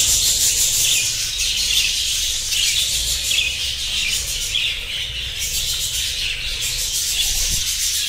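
A colony of budgerigars chattering and chirping all at once, a dense unbroken flock chatter, over a low steady rumble.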